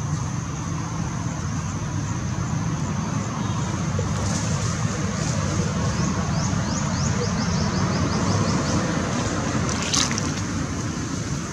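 Outdoor background noise: a steady low rumble with a thin, steady high-pitched drone above it. A quick run of short chirps comes in the middle, and a single sharp click about ten seconds in.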